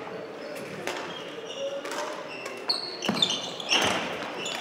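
Badminton court sounds in a sports hall: shoes squeaking on the court floor and sharp taps and thuds, loudest about three to four seconds in, over a steady hum.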